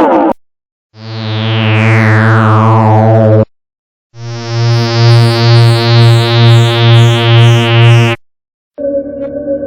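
Synthesized UFO sound effects, one after another. First a buzzing hum with a falling sweep, then a throbbing hum pulsing about twice a second, then a crackling electronic drone near the end.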